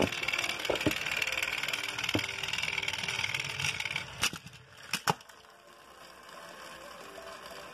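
Battery-powered toy train motors whirring as a motorized toy engine pushes another along plastic track. The whirring stops about four seconds in, followed by a few sharp plastic clacks as the toy trains come off the raised track.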